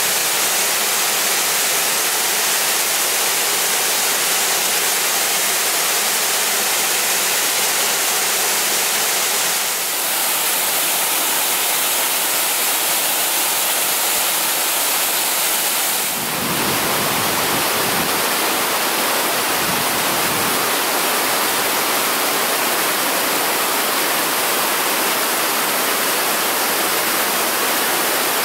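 Waterfall: water plunging over a rock ledge into a pool, making a loud, steady rushing hiss. The sound shifts in character twice, about ten and sixteen seconds in, with some low rumbling for a few seconds after the second change.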